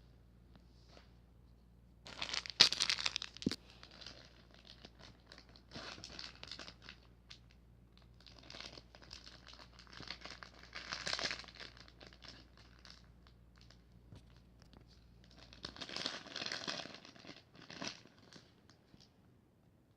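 Packaging wrap being handled and unwrapped, crinkling and tearing in several separate bursts; the loudest comes about two seconds in.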